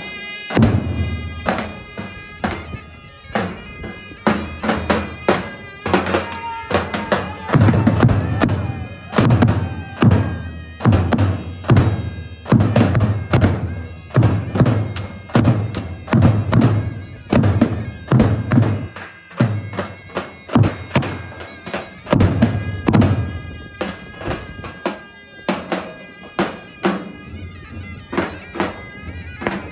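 Davul and zurna playing a halay dance tune: the zurna holds a sustained, ornamented melody over a steady beat of heavy davul bass-drum strikes.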